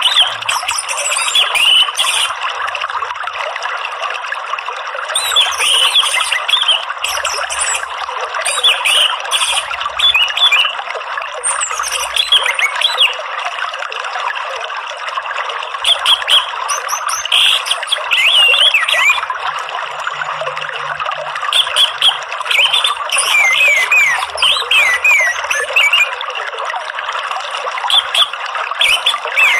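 Continuous trickling, flowing water, with short phrases of orange-headed thrush song and chirps breaking in every few seconds.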